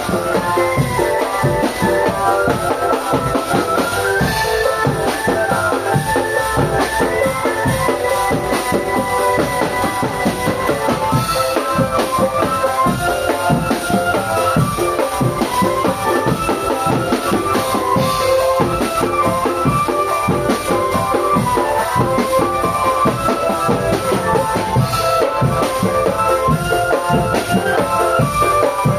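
Marching drum band playing a tune: a steady, dense beat of snare and bass drums under a melody of stepping held notes.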